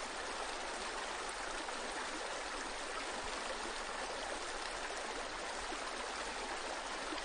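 Steady, even hiss, like rushing water.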